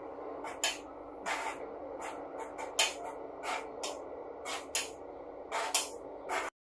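A dozen or so short, soft swishes at irregular intervals as an ebru marbling stylus is drawn back and forth through the paint-covered water bath, over a steady background hum. The sound cuts off suddenly near the end.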